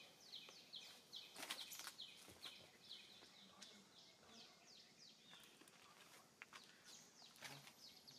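Faint birdsong: short, high chirps that fall in pitch, repeated about one to two times a second, with a few soft clicks.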